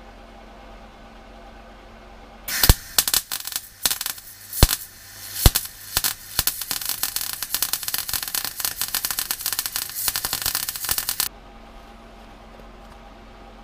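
MIG welder arc running a bead on thin sheet steel, about 0.8 mm, with the welder set to voltage position 1 and wire speed 1. The arc strikes about two and a half seconds in, sputtering with loud irregular pops for the first few seconds while the heat gets into the metal. It then settles into a steady, dense crackle and cuts off suddenly about eleven seconds in, over a low steady hum.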